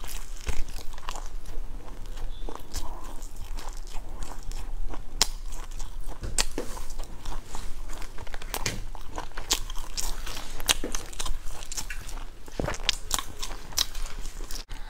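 Biting and chewing a crispy fried flatbread: sharp, irregular crunches and crackles as it is bitten and chewed.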